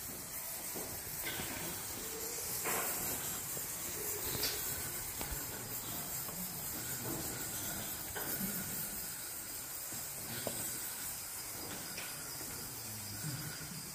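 A steady high hiss with a few faint, scattered knocks.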